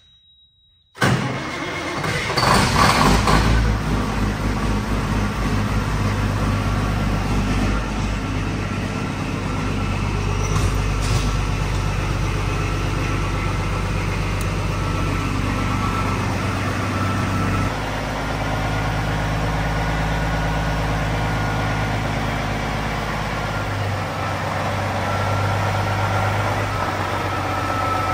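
Semi truck's diesel engine cranking over on freshly installed batteries and catching about a second in. It runs up briefly, then settles to a steady idle: the new batteries start it.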